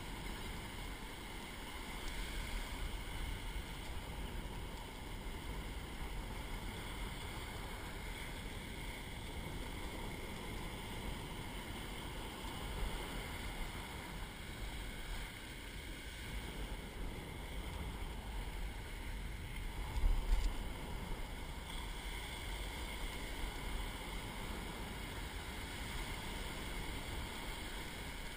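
Ocean surf breaking and washing up the beach, with wind rumbling on the microphone. A brief louder bump about twenty seconds in.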